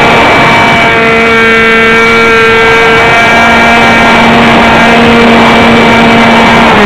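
Beta 1400 model aircraft's motor and propeller heard through its onboard camera: a loud, steady drone held at one pitch over a rough rush of noise, the pitch dropping right at the end.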